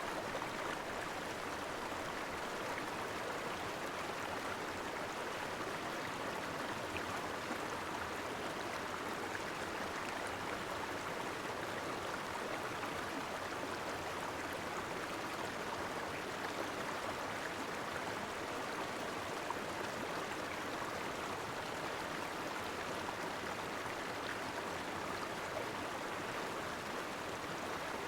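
Steady rush of water falling and running over the cascades of a waterfall stream.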